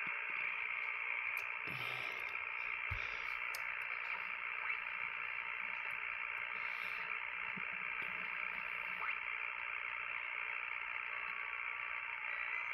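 Steady receiver hiss and static from a Yaesu FT-One HF transceiver's speaker as it is tuned across an almost empty 15-metre band, with the band in poor condition. Near the end, faint steady FT8 digital-mode tones come in as the dial reaches the FT8 frequency around 21.074 MHz.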